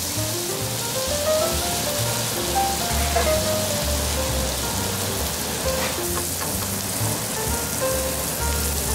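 Eringi mushrooms frying in butter and oil in a pan over a high flame, a steady sizzling hiss. Background music plays alongside, a melody of short notes over a low bass.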